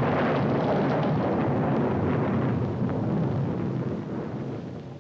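Loud, dense rumbling roar on the end-title soundtrack of an old TV film, fading away over the last couple of seconds.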